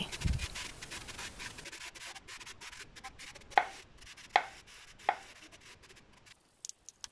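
Chef's knife slicing brown mushrooms on a wooden cutting board. Three sharp knocks of the blade on the board come about three quarters of a second apart, with fainter cuts between them.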